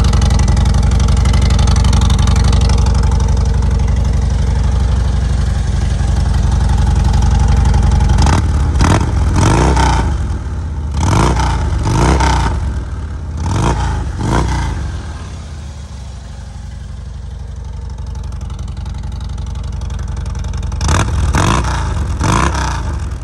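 2009 Harley-Davidson Road King's V-twin engine through its stock mufflers, idling, then blipped with the throttle about six times in quick succession. It settles back to a quieter idle and is blipped two or three more times near the end.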